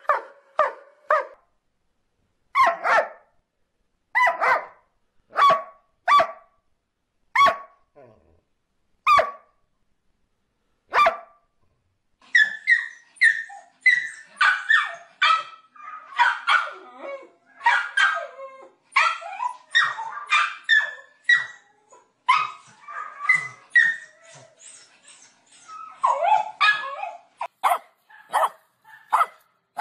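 Dogs barking. First a short run of quick barks, then single barks about every second and a half. From about twelve seconds in, a small dog barks rapidly and almost without pause, higher-pitched than the earlier barks.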